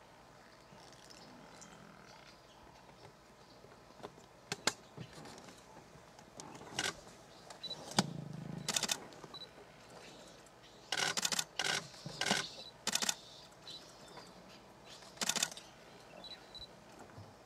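Camera shutters firing in short bursts a dozen or so times, one run of rapid frames about eleven seconds in, over a quiet outdoor background with a few faint bird chirps. A low thud sounds about eight seconds in.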